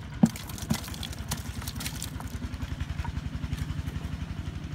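A small engine idling steadily with a low, rapid putter. Near the start, a sharp knock and then a softer one as an eel and fish drop from a plastic bottle trap into a plastic bucket.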